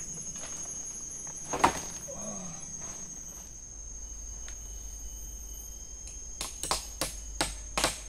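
Sharp knocks of a tool striking wood: one loud knock, then near the end a steady run of strikes about three a second, as in hammering or chopping during shelter building.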